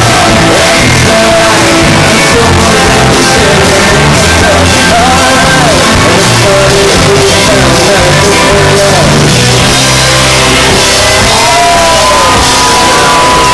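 Rock band playing live and loud: electric guitar, bass and drums with a singer's voice over them.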